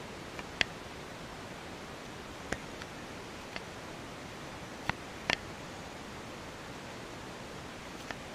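A steady, even rushing hiss, with a few sharp clicks scattered through it.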